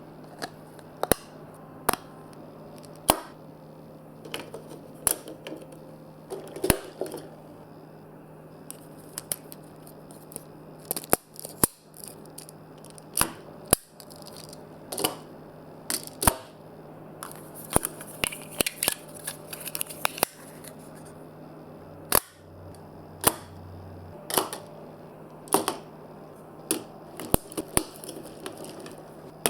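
Marbles rolling through a toy-block and magnet marble run, clicking and clacking against the plastic pieces in many irregular sharp knocks, over a faint steady low hum.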